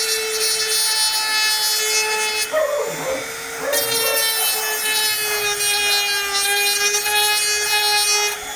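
Handheld rotary tool with a grinding bit running at a steady high-pitched whine, roughening for about a second around three seconds in as the bit works the PVC pipe piece.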